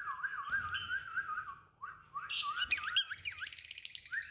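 Cockatiel whistling a fast warbling call, its pitch wavering quickly up and down. It breaks off briefly just before two seconds in, then resumes with some higher looping notes.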